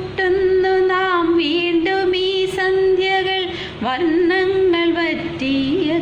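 A woman singing a slow melody in long held notes with a slight waver, breaking off briefly about four seconds in.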